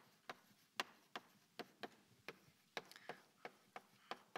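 Chalk tapping and clicking against a blackboard as words are written: a faint, uneven series of sharp clicks, about three a second.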